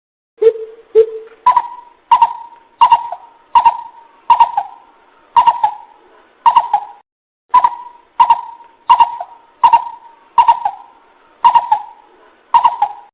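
Coucal calls played as a bird lure: a run of short hooting notes, a little more than one a second, each with a sharp start. The first two notes are lower. It is the call used to bring other coucals in.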